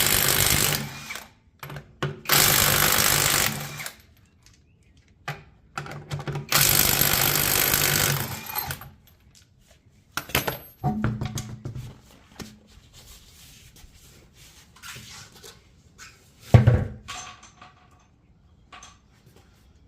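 Power impact wrench spinning off wheel lug nuts in three runs of about two seconds each. After them come metallic clinks, a ringing clink and, near the end, a single heavy thump.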